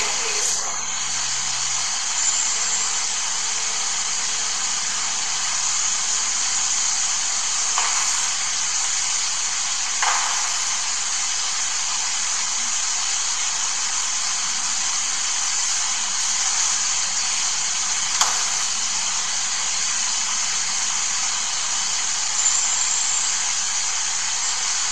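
Steady hiss, even and unbroken, with a few faint clicks scattered through it.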